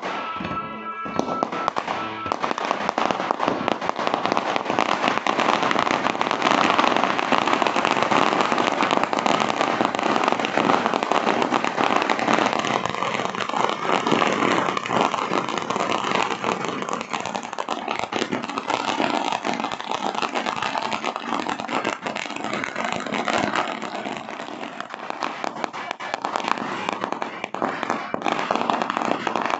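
A long string of firecrackers going off in rapid, continuous crackling that starts about two seconds in and runs on without a break. A ringing tone fades out in the opening two seconds.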